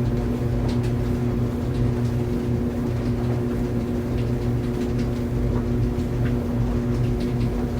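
Tumble dryer running: a steady motor hum over a low drone, with faint scattered ticks.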